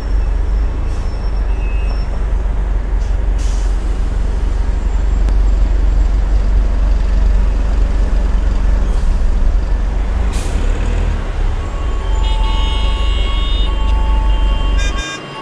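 Loud city traffic: a steady deep rumble of heavy vehicles with brief air-brake hisses and, near the end, several horn toots, all cutting off abruptly just before the end.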